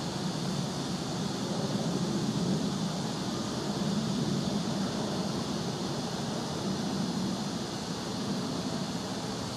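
Steady background noise: a low hum under an even hiss, with no distinct events.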